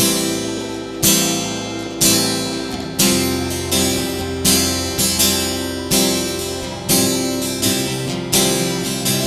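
Acoustic guitar strumming slow chords, each strum ringing on until the next, about one a second.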